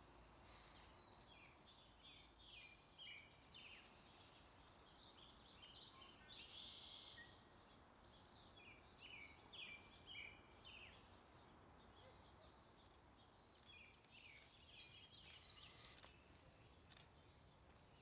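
Faint songbird calls in the woods: quick high chirps and short trills in several bursts, the first a note sliding downward, over a low steady hiss.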